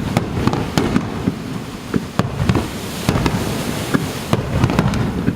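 Fireworks display: shells bursting in quick, irregular succession, many sharp bangs over a continuous low rumble.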